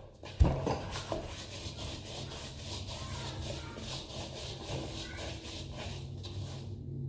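Hands working soft bread dough with flour: a knock about half a second in, then steady, repeated rubbing and pressing strokes.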